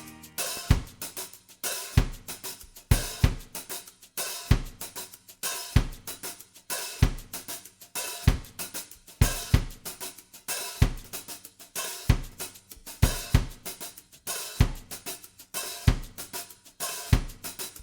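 A drum-only passage of music: snare drum, bass drum and cymbals play a steady march-like rhythm with a heavy beat about every second and a bit, and no melody instruments.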